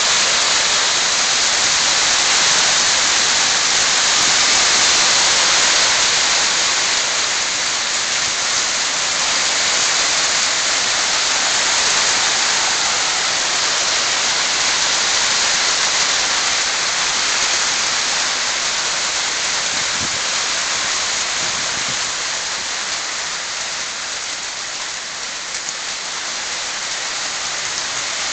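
Small hail falling steadily onto a car and a paved driveway, a dense, even hiss of pellets striking, easing a little near the end.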